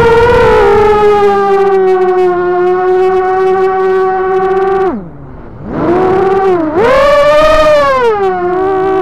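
ImmersionRC Vortex 250 Pro quadcopter's brushless motors and propellers whining steadily, recorded on its onboard camera. About five seconds in the pitch falls sharply as the motors slow with the throttle off, then climbs back within a second, dips briefly and rises again before settling near its first pitch.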